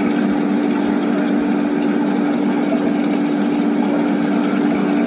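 Live lobster tank's water pump and filtration running: a steady hum on one constant low tone, with an even hiss of moving water above it.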